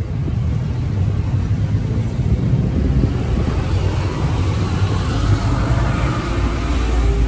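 Steady low rumble of street background noise, with a faint hiss that swells a little midway.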